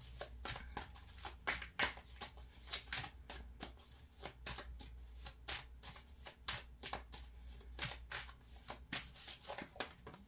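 A deck of cards being shuffled in the hands: an uneven run of quick card snaps and rustles, several a second.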